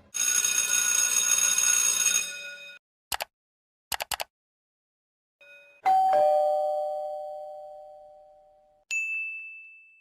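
A string of separate cartoon sound effects: a bright, steady ringing tone for about two and a half seconds, a few sharp clicks, then a two-note doorbell-style ding-dong, high then low, that fades slowly, and a short high beep near the end.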